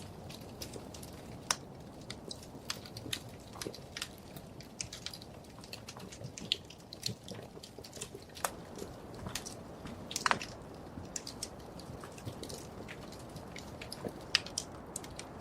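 Wood fire burning in a fireplace: a steady low rumble of flames with irregular small crackles and a few sharper pops from the burning logs.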